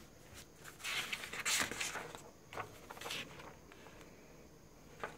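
Paper pages of a printed instruction booklet being turned by hand: a few soft rustles and flaps about a second in and again around three seconds in.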